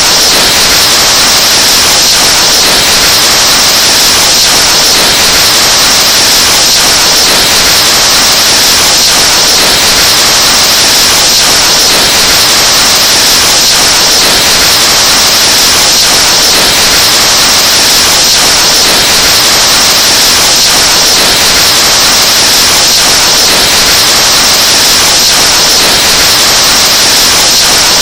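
Breath blown into a microphone, boosted until it distorts into a very loud, steady rushing hiss with no letup.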